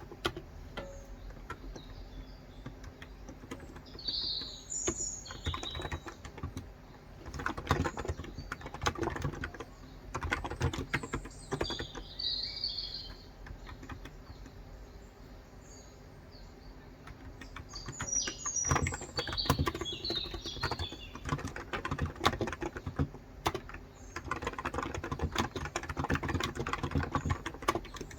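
Bursts of fast typing on a COX Endeavor 35g electro-capacitive (contactless) tenkeyless keyboard, soft rapid key clicks with short pauses between runs. Birds chirp in short bursts over it.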